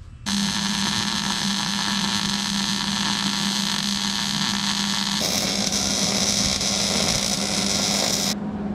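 Hobart Handler 140 MIG welder tack-welding motor mount brackets into a car's engine bay: a steady hiss with a constant hum under it. It starts suddenly, changes tone about five seconds in, and cuts off just before the end.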